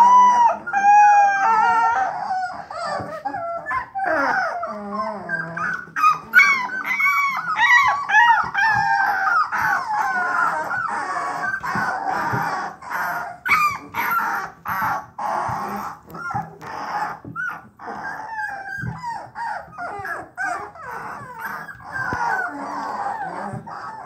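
A litter of three-week-old bluetick coonhound puppies bawling and whimpering: many short, high, rising-and-falling calls overlapping one another, the puppies' first attempts at the hound's bawl.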